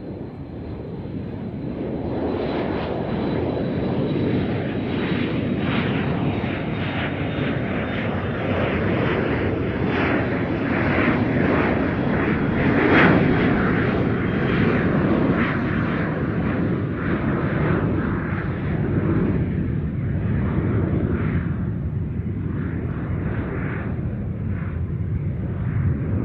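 Airplane taking off: loud engine noise swells in over the first couple of seconds, then holds with a faint high whine on top, peaks about halfway and eases off slightly afterwards.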